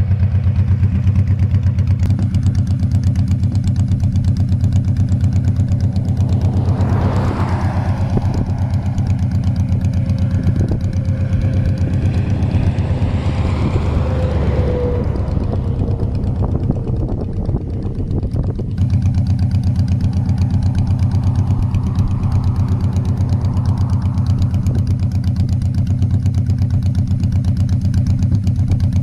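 A motorcycle's V-twin engine idling steadily, with an even low beat, plausibly the 2000 Honda Shadow Spirit 1100 parked on the shoulder. About a quarter of the way in, another vehicle passes on the highway, swelling and fading over roughly ten seconds with a slightly falling tone.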